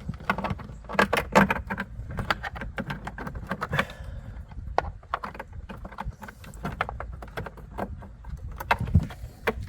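Irregular clicking, rattling and rustling of hands handling a dash cam power cable and plastic interior trim.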